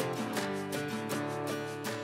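Background music with strummed guitar and a steady beat, getting slightly quieter toward the end.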